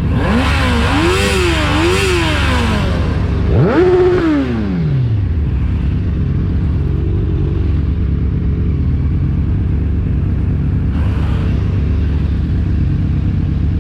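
Inline-four motorcycle engine idling, blipped twice in quick succession at the start, then given one sharp rev about three and a half seconds in that drops back to a steady idle.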